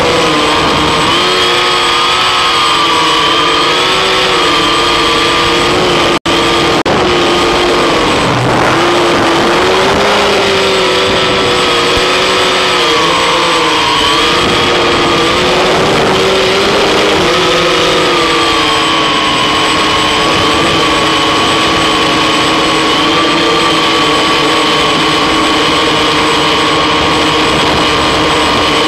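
Electric motors and propellers of an eight-rotor multicopter whining in flight, several tones wavering up and down together as the motor speeds shift. The sound cuts out for an instant about six seconds in.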